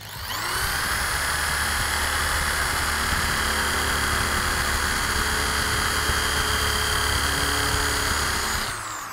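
Stanley STEL101 400 W corded electric drill spinning up, then running steadily as an 8 mm bit drills into a 1 cm steel plate, and winding down near the end.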